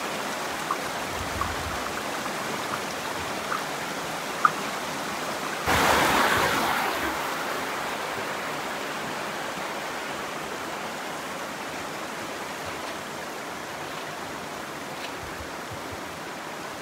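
Mountain stream rushing over rocks, a steady hiss of water. About six seconds in the water noise suddenly gets louder, then eases back down; a few small clicks come in the first seconds.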